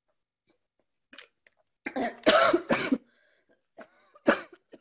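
A woman coughing after a swig of liquid from a small bottle. There is a long fit of coughing about two seconds in, then one sharp cough near the end.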